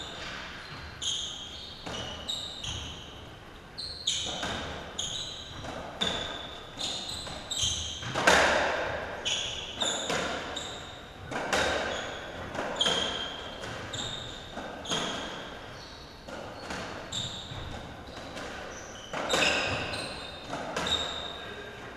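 A racketball rally in an echoing squash court: the ball is struck hard over and over against racket, walls and floor, about one or two hits a second, with frequent short high squeaks from the players' shoes between the hits.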